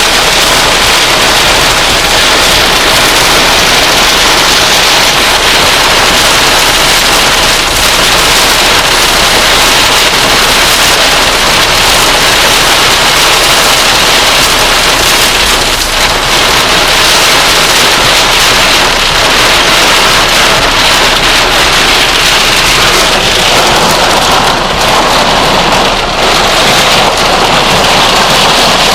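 Heavy rain pouring down and drumming on surfaces: a loud, steady downpour.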